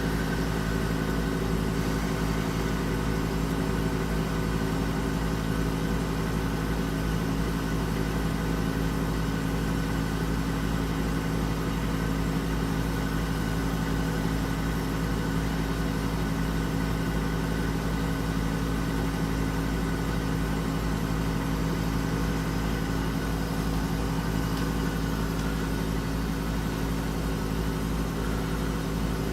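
Room air conditioner running with the compressor on and the fan on high: a steady hum with a constant low drone. The owner says the unit is not cooling properly.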